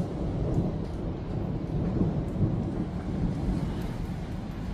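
Thunder rumbling on without a break in low, rolling swells, loudest about two seconds in.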